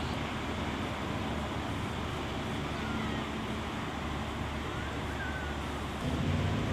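Steady rumble and road noise of a moving car, with a low engine hum that grows louder near the end.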